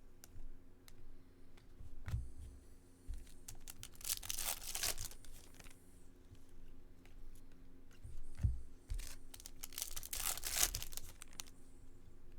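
2022 Topps Chrome baseball card packs being torn open by hand: two long tearing, crinkling rasps of the wrappers, about four seconds in and again near the end, with a few low thumps of handling on the table.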